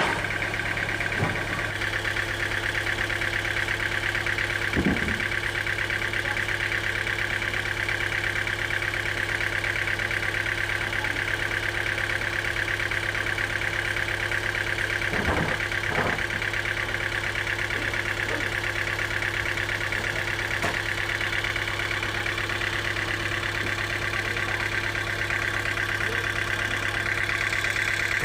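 Sawmill machinery running steadily with a constant drone and a high whine, with a few short knocks, two of them close together around the middle.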